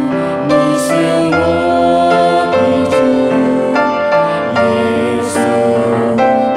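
A woman singing a Mandarin worship song with grand piano accompaniment, in long held notes.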